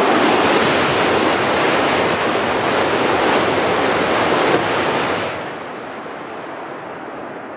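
E6 and E5 series Shinkansen coupled set passing at speed: a loud, even rushing of wheels and air that cuts off sharply about five seconds in as the last car goes by, leaving a fading hiss.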